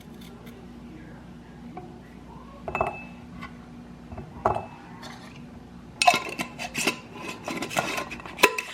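Dishes and cutlery being handled: a couple of separate knocks, then a quick run of clinking and clattering from about six seconds in. A faint steady hum runs underneath.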